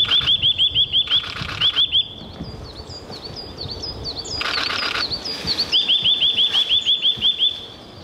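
Eurasian nuthatch singing: fast runs of short, rising whistled notes, about eight a second, at the start and again in the second half. Between the runs comes a slower string of short falling notes. Two brief buzzy bursts break in, about a second in and just before the middle.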